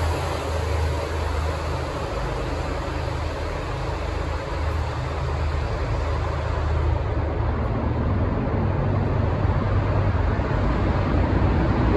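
Road traffic in a tunnel: a steady low rumble of passing vehicles echoing off the tunnel walls.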